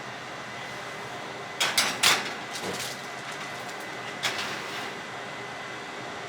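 Kitchen clatter: a quick run of sharp knocks and rattles, like a door or cupboard and dishes being handled, about a second and a half in, and another knock a little after four seconds, over a steady appliance hum.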